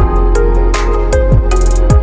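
Background music with a steady beat: deep kick drums that drop in pitch, sharp higher percussion hits between them, and sustained synth notes.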